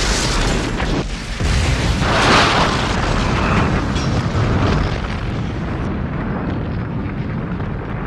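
Explosion sound effect: a loud blast with a deep rumble that swells again a couple of seconds in, then rolls on and slowly fades.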